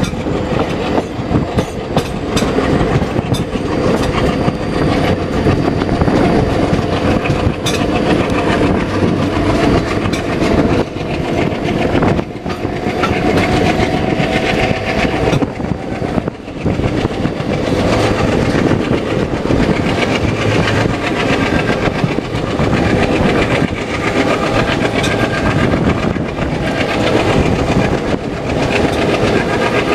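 Express train behind a rebuilt Alco diesel locomotive running under power, its wheels clattering over the rail joints above a steady engine drone, with a rising tone about twelve seconds in.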